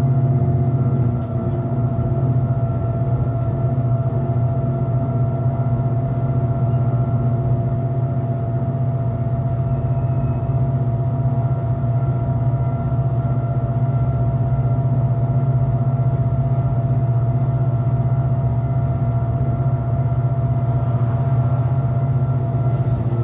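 Electric rack-railway car running steadily downhill, heard from inside the driver's cab: a loud, steady low hum with a fainter steady whine from its drive above it.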